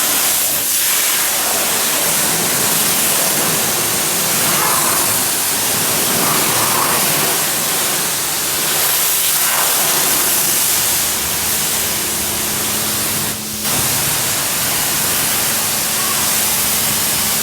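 Self-service car wash lance spraying water at high pressure onto a car: a steady, loud hiss, broken only by a brief dip a little after halfway through.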